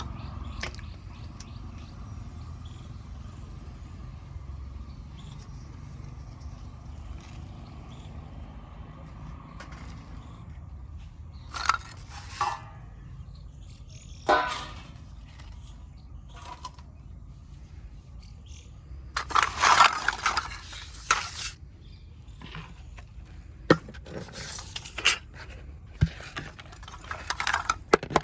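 Unglazed clay kulhad cups being broken and crushed: scattered sharp crunches and snaps, with the loudest run of crunching about two-thirds of the way through, over a low steady hum.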